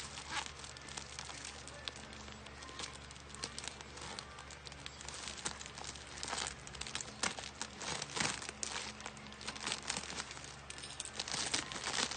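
Packaging crinkling and rustling as it is handled and opened, with irregular crackles.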